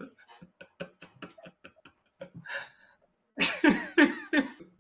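A man laughing hard. First comes a quick run of short, breathy, near-silent laugh pulses, then, after a brief pause, a louder burst of voiced laughter near the end.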